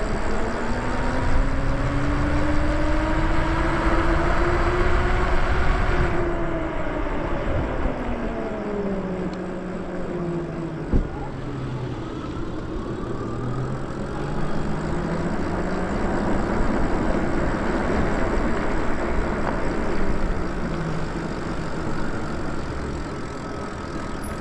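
Lyric Graffiti electric bike's motor whining while riding, its pitch rising and falling as the bike speeds up and slows down, over wind rumble on the microphone. One sharp knock about halfway through.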